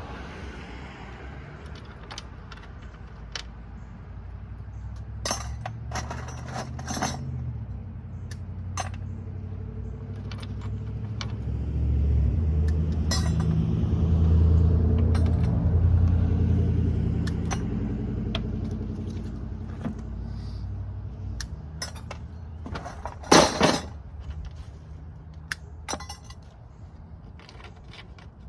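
Small metal scrap pieces clinking and rattling as they are handled and dropped, in scattered clicks with a louder cluster about two-thirds through. Under them runs a low engine hum that swells in the middle and fades again.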